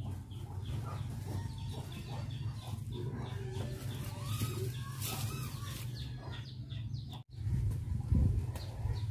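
Chickens clucking in the background, in short rising-and-falling calls. Near the end come a few dull thuds of a hoe striking soil.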